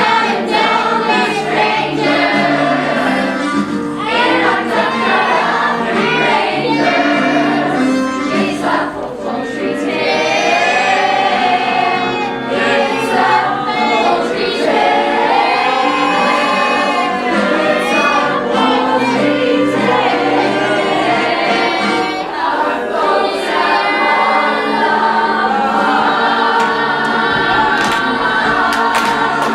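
A high-school musical-theatre cast singing in chorus over an instrumental accompaniment.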